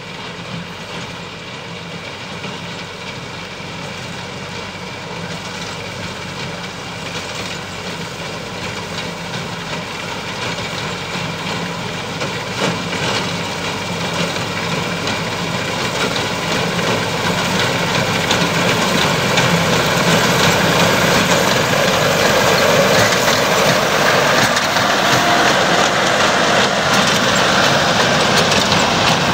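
Massey Ferguson 385 tractor's four-cylinder diesel engine running under load, with the clatter of its front-mounted reaper binder cutting wheat, growing steadily louder as the machine approaches.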